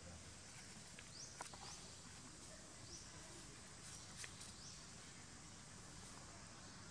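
Faint outdoor forest ambience: a steady low hiss, with a few short, high, rising chirps scattered through it and a couple of light clicks.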